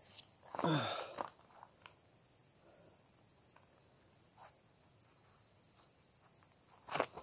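Steady, high-pitched chorus of insects. A brief falling swish comes about a second in, and a single knock comes near the end.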